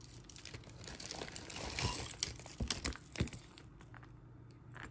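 Quiet crinkling and rustling of hands rummaging, then a few sharp light clicks between two and three seconds in as a heavy silver-tone curb-chain collar necklace is lifted and handled, its metal links clinking.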